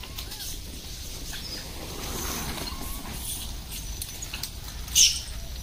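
Rhesus macaques being fed bananas: faint scattered rustling and clicking and a few short, soft rising-and-falling calls, with one sharp, brief high-pitched sound about five seconds in, the loudest in the stretch.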